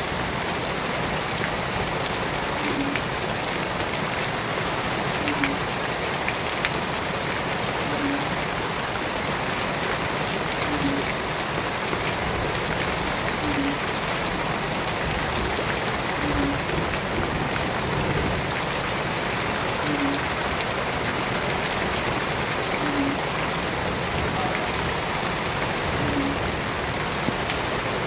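Shallow water running and splashing over ground and stones, a steady dense rain-like patter. A short low note recurs faintly every few seconds.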